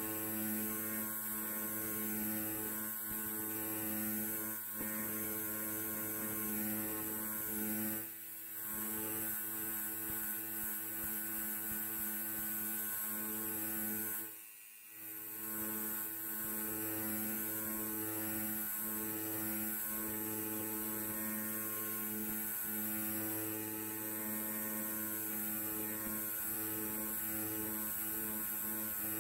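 Electric hair clipper running with a steady buzz. Its level briefly drops twice, about eight and fourteen seconds in.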